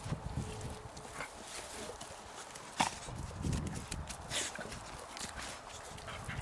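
A dog snorting and sneezing: a few short, breathy bursts, with a sharp click a little before the middle.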